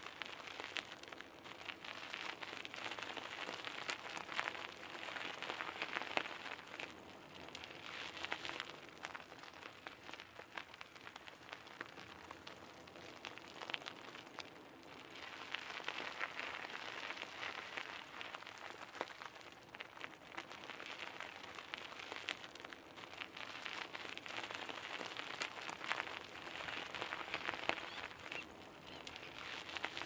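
Bicycle tyres rolling over a gravel path: a steady gritty crunching hiss full of small stone clicks. It swells and eases in waves, softer for a few seconds around the middle.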